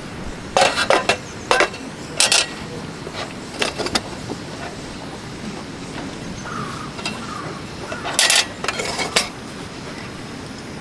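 A series of short clatters and knocks with quiet gaps between them, like camp gear or dishes being handled, loudest in a cluster about eight seconds in.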